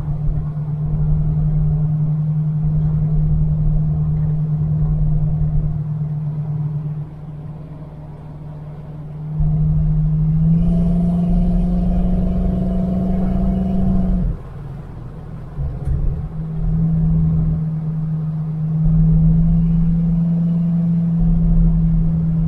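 1969 Chevelle's engine droning steadily while the car is driven on the road. About halfway through it climbs in pitch and gets louder under throttle, drops off suddenly a few seconds later, then builds again.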